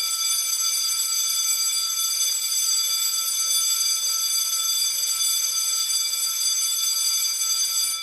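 School bell sound played through the built-in speaker of a SuperSync BS-101 digital bell and broadcasting system as its automatically scheduled bell: a loud, steady electric-bell-like ring that holds for about eight seconds and stops at the very end, leaving a brief fading ring.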